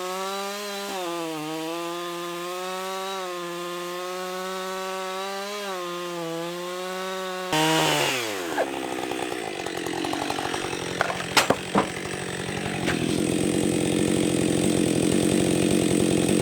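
Gas chainsaw cutting through a large maple log to take off the end holding an embedded bolt. The first half is a steady high engine note. About halfway the sound changes abruptly to the saw biting into the wood, with a few sharp knocks, and it grows louder near the end.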